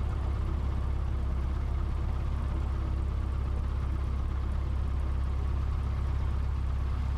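Steady low drone of a Cessna 150's four-cylinder Continental O-200 engine and propeller running at low taxi power, heard from inside the cabin.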